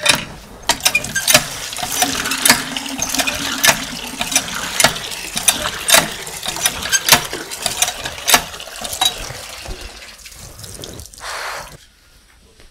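Cast-iron hand pump being worked: the handle clanks with each stroke, nearly twice a second, over the rush of pumped water. The strokes stop near the end.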